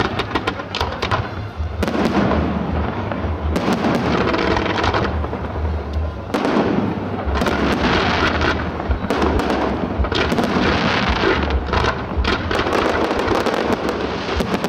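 Fireworks display: a continuous dense barrage of cracks, pops and bangs from bursting aerial shells and sparking fountains, over a steady low rumble.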